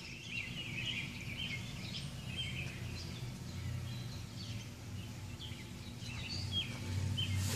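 Birds chirping over and over in the background, over a low steady hum.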